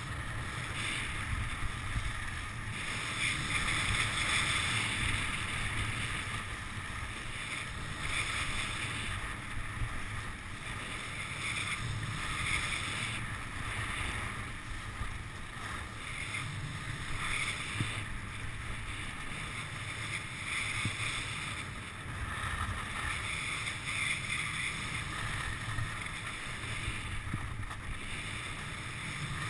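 Wind rushing over a ski-mounted action camera's microphone, with skis scraping and hissing on packed snow that swells and fades with the turns.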